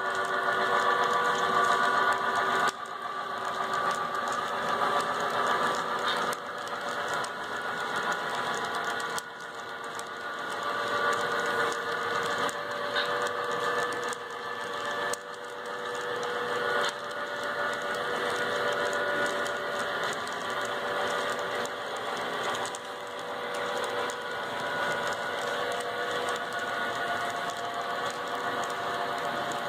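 Model freight train rolling past on the layout: a steady mechanical whir and rattle of the cars' wheels running on the track.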